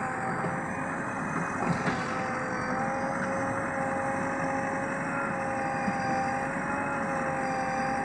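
JCB 3DX backhoe loader's diesel engine running steadily under load while the backhoe arm digs, with a steady whine held above the engine noise.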